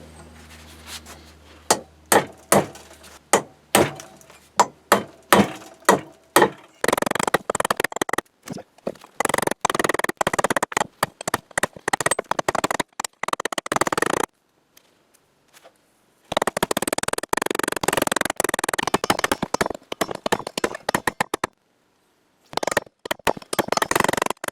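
Hammer blows on a metal drift, knocking a seized part out of a cast-iron workbench. There is a run of separate ringing strikes about two a second, then faster, denser hammering in stretches that cut off suddenly.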